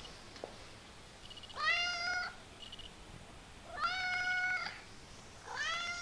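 Kitten meowing three times, each meow rising at the start and then held level for under a second, about two seconds apart.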